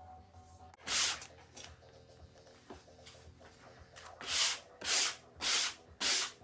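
Sanding block rubbed across the paper edge of a book clamped in a laying press, sanding the edge level. One stroke about a second in, then four quick strokes at about two a second near the end.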